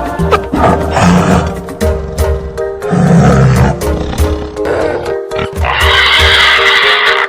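Tiger roaring and growling in several bursts, over background music.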